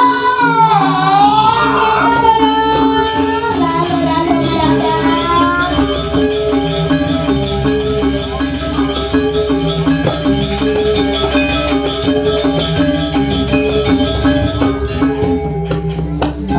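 Balinese gamelan playing loudly, with steady metallic pitched tones and a fast, dense shimmer of small clashing cymbals. A voice sings a long, wavering line over it for the first several seconds.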